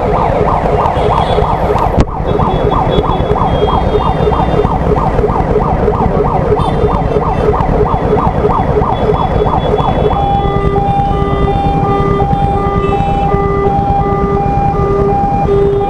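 Ambulance siren sweeping up and down rapidly, about three times a second, then switching to an alternating two-note hi-lo call about ten seconds in. Underneath is the low rumble of idling traffic, and a single sharp click comes about two seconds in.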